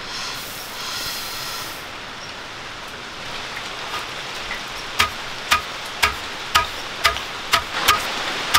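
Roasted rice grains poured into a stone mortar with a brief hiss, then, about halfway through, a long wooden pestle with a metal-capped tip pounding the grains in the stone mortar, a steady knock about twice a second.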